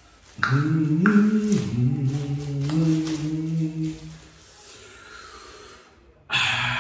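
A man humming a short wordless tune in held notes, stepping up and down in pitch, for a few seconds; near the end a sudden breathy vocal sound starts.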